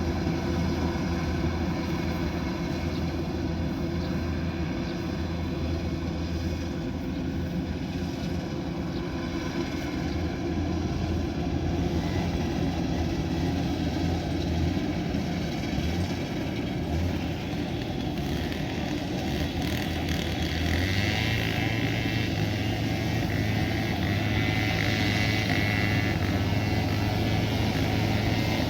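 Kubota DC108X combine harvester's diesel engine running steadily. About twenty seconds in, its note steps up in pitch and grows a little louder.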